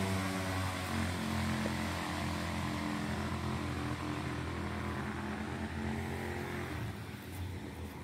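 A motor engine running with a steady hum, fading and dying away about seven seconds in.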